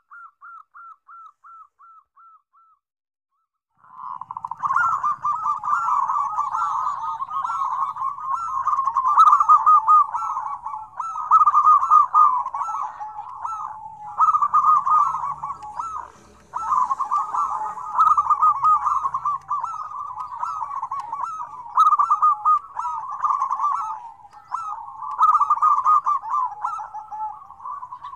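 Many zebra doves (perkutut) cooing at once, a dense overlapping chorus of quick trilling coos that starts about four seconds in, after a short run of fainter evenly repeated notes.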